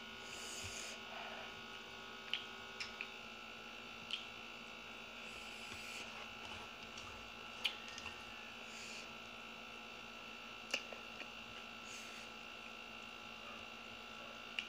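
Quiet eating sounds while eating by hand: half a dozen short, sharp clicks and taps scattered through, over a steady electrical hum.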